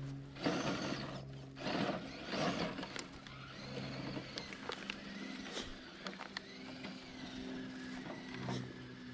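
Enduro Trail Walker RC crawler's small electric motor and gear drivetrain running with a steady low hum that shifts pitch as the throttle changes, as the truck crawls over the dirt and pine needles. Three short crunches on the forest floor come in the first few seconds, with scattered small clicks throughout.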